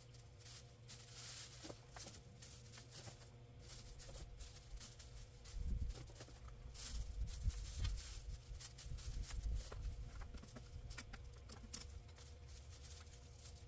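Irregular rustling and crackling of a dying watermelon vine being pulled up and handled, with a run of low bumps and thuds in the middle.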